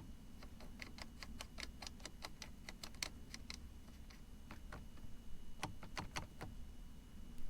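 Faint, light metallic clicking from hand work on the ATV clutch perch and cable adjuster hardware: a quick run of irregular ticks, then a few more a couple of seconds later.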